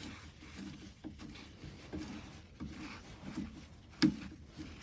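Faint scattered clicks and rubbing from hand work with channel locks on a diesel fuel filter housing, with one sharp knock about four seconds in.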